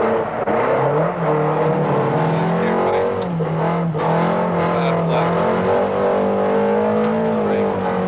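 Rally car engine running hard, its pitch stepping up and dropping back several times with throttle and gear changes.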